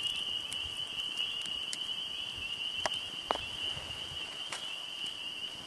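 A steady high-pitched trilling chorus of night insects, with a handful of sharp, scattered pops and snaps from a burning wood campfire.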